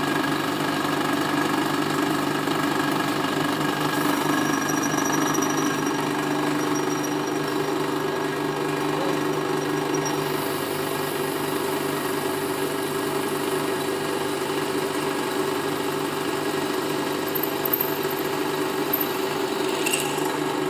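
Pillar drilling machine running steadily, its motor and spindle humming as the drill bit is fed into a metal workpiece. A sharp click near the end.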